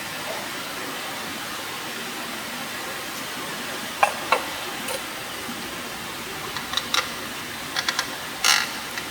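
Steady hiss of food cooking over a campfire, with a few short clicks and clinks of utensils: two about four seconds in, a small cluster a little later, and a louder one near the end.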